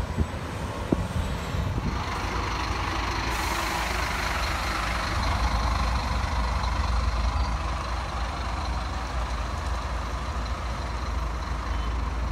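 Diesel city bus engine running as the bus pulls away from its stop and drives off, a steady low rumble.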